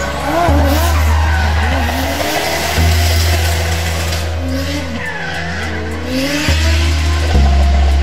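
Drift car sliding through a hairpin, its engine revs rising and falling with the throttle while the rear tyres squeal and scrub through the skid.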